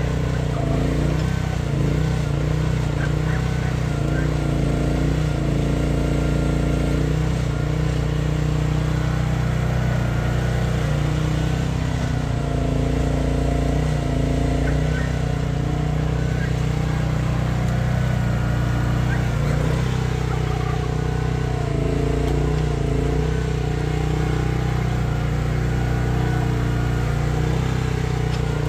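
Mini excavator's Briggs & Stratton 13.5 hp petrol engine running steadily under load while it digs, with a fainter whine that rises and falls as the boom and bucket move.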